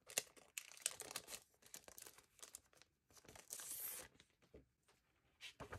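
Faint crinkling and rustling of a clear plastic sleeve as a paper planner dashboard is slid out of it, with many small crackles and a longer rustle about three and a half seconds in.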